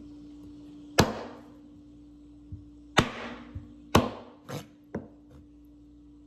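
Knife chopping the nails off chicken feet on a wooden cutting board: five sharp chops at uneven intervals, over a steady low hum.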